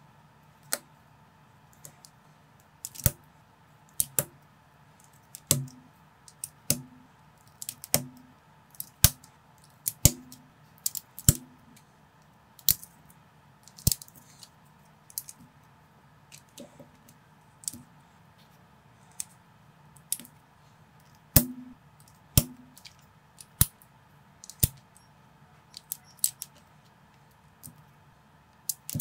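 Lego-compatible plastic bricks being pressed and snapped together by hand: a string of sharp clicks at irregular intervals, about one a second, many with a short dull knock.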